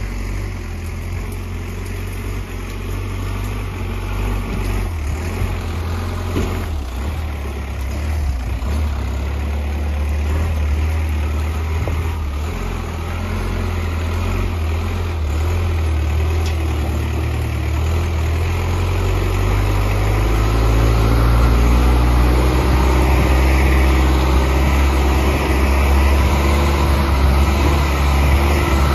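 Four-wheel-drive Dodge truck's engine running as the truck drives over rough, grassy ground. It is a steady low engine note that grows louder as the truck comes closer, most clearly from about twenty seconds in.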